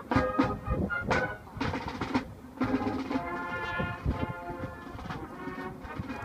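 High school marching band playing: sharp drum hits in the first second or so, then held brass chords over the drums.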